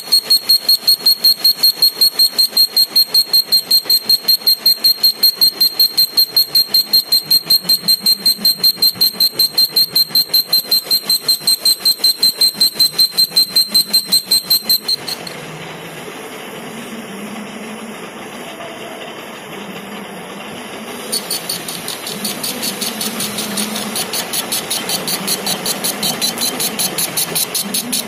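Lathe cutting tool turning a hydraulic cylinder piston, giving a loud high-pitched whistle that pulses about four times a second. About halfway through the whistle cuts off suddenly, leaving the lathe running more quietly. Near the end a fainter pulsing cutting sound starts again.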